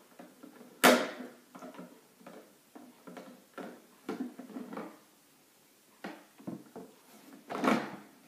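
Plastic pusher tool working a small metal baking tray through the slot of an Easy Bake Oven: irregular knocks, clicks and short scrapes, with a sharp knock about a second in and louder knocks near the end.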